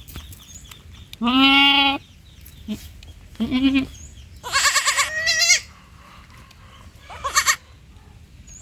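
Young goat (kid) bleating, four bleats in all: the first the longest, the third and fourth higher-pitched.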